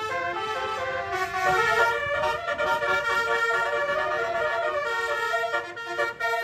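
Bus 'basuri' telolet horn, a multi-trumpet air horn, playing a tune of held notes that step up and down in pitch, with a brief break near the end.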